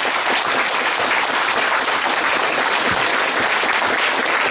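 Audience applauding steadily in a large hall: many people clapping at once.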